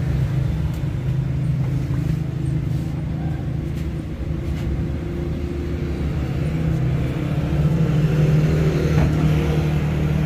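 Road traffic: a motor vehicle's engine running close by with a steady low hum, growing louder in the last few seconds.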